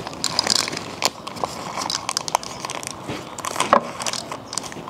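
Crinkling of a plastic slime-kit packet with irregular small clicks and taps as small heart pieces are emptied out of it.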